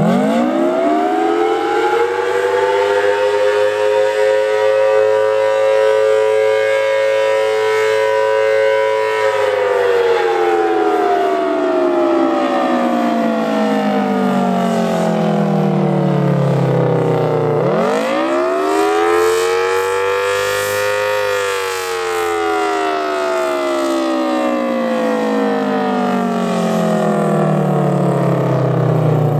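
Federal Signal Thunderbolt 1000T outdoor warning siren with a 4/5-port rotor, sounding the Attack signal. It winds up from silence to a loud two-note chord and holds it for about nine seconds. It then slides down, rises again more quickly and falls again, and begins another rise at the end.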